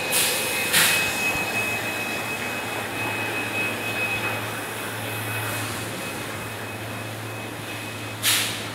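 Plastic bottle cap factory machinery running: a steady high-pitched whine over a low hum. Short bursts of rushing noise come twice near the start and once near the end.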